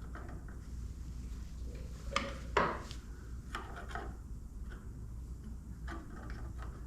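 Scattered small clicks and knocks of parts being handled while an LED turn signal light is worked on, the loudest knock about two and a half seconds in.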